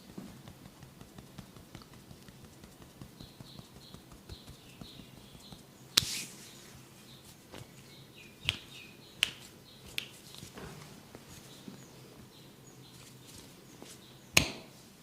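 Hands-on head massage: soft rubbing and light tapping, broken by five sharp smacks, the loudest about six seconds in and near the end.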